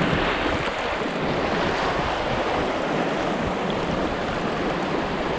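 Fast river current rushing and churning over shallow riffles around an inflatable kayak, a steady, even rush with wind buffeting the microphone.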